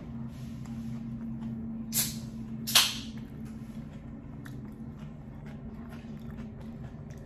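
Eating sounds close to the microphone: two short, loud mouth noises a little under a second apart, about two seconds in, over a steady low hum.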